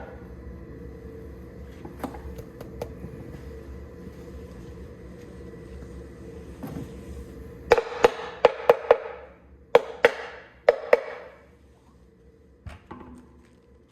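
A quick run of sharp knocks, about six in a row starting about eight seconds in, then four more a couple of seconds later, each with a short ringing tail, over a steady low hum.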